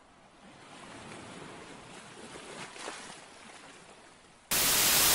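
Hurricane wind and surf as a steady rushing noise, then about four and a half seconds in a sudden, much louder rush of wind blasting the microphone.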